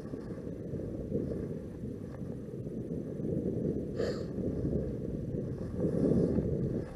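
Wind buffeting the microphone as a steady low rumble, with a brief sharper noise about four seconds in.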